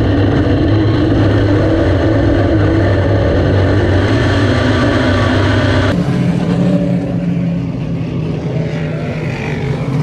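Dirt modified race car's engine running hard at a steady pitch, heard from inside the car. About six seconds in the sound cuts abruptly to a quieter drone of race cars circling the track, heard from trackside.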